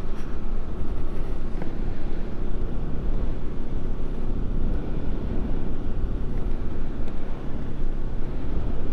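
Motorcycle on the move: steady wind rumble on the rider's microphone with the Bajaj Pulsar NS 200's single-cylinder engine running under it at a steady pace.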